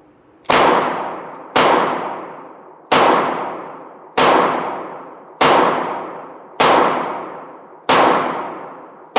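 Glock pistol fired slowly, seven shots about a second and a quarter apart. Each shot rings out and dies away over about a second.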